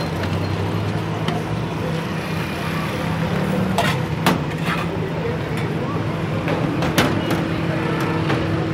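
Steady low mechanical hum of street background noise, like traffic or a motor, with a few sharp clicks about four seconds in and again about seven seconds in.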